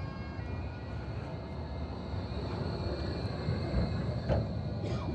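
Tram standing at a stop, its equipment giving a steady low hum with a thin, steady high whine over it, amid street noise.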